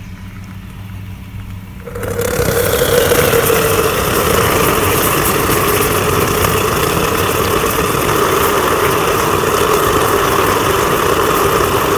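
Liquid nitrogen boiling violently around a red-hot rusted steel nut and bolt plunged into it. The boiling starts suddenly about two seconds in and then runs on loud and steady.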